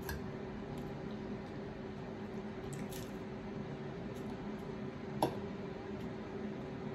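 Soft chewing and mouth sounds from a bite of chicken salad, with a few small clicks, the most marked one about five seconds in, over a steady low hum.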